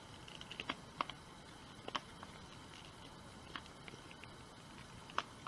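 A handful of faint, sharp clicks spaced irregularly, from hand-tightening a Ryobi cordless drill's chuck onto a buffing-wheel arbor.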